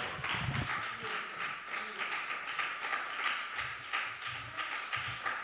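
Faint, scattered clapping from a small congregation, with a few low voices underneath.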